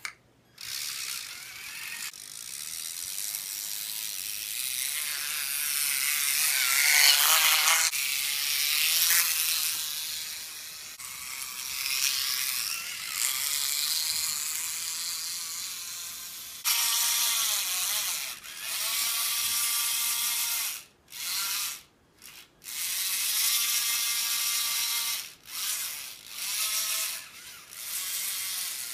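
Small electric gearmotors of a Tamiya double gearbox whirring as the tracked tank drives, plastic tracks and gears running, the whine rising and falling in pitch with speed. In the second half the motors stop and start several times with short pauses.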